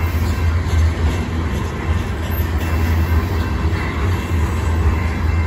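Long freight train of covered grain hopper cars rolling steadily past, its wheels on the rails making a continuous low rumble.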